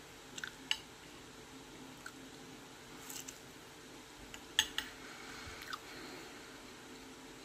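Quiet eating sounds: a metal fork clicking a handful of times against a plate, loudest about halfway through, with soft chewing, over a faint steady hum.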